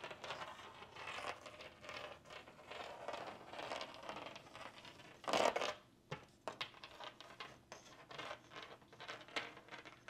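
Magnet sliding and tapping over textured drywall by hand: faint, irregular scratching and rubbing with scattered light clicks. A short, louder rushing noise about five and a half seconds in.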